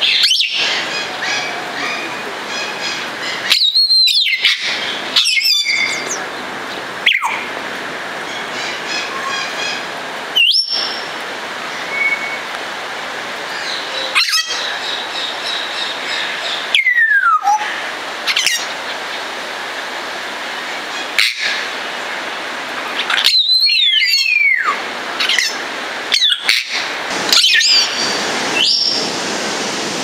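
Congo African grey parrot whistling: a series of loud whistles spaced a few seconds apart, some rising and some sliding down in pitch, with short chirps between them. A steady hiss runs underneath.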